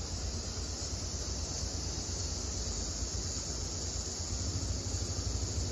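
Steady outdoor background: a low, fluctuating rumble of wind on the microphone under an even, high hiss typical of an insect chorus.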